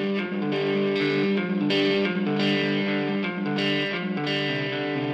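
Background music led by a distorted electric guitar playing held chords.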